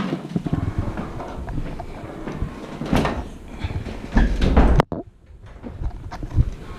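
A door pushed open with a sharp knock at the start, followed by close rustling, scuffs and scattered knocks of movement through a small room. About five seconds in, a heavy low rumble cuts off suddenly into a brief near-silent gap.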